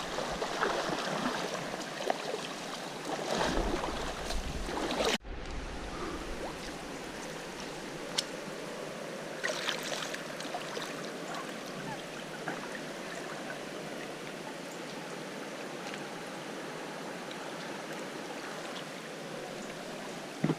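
River water flowing over a trout stream, a steady rushing hiss with a few brief splashes. The sound changes abruptly about five seconds in, then carries on steadily.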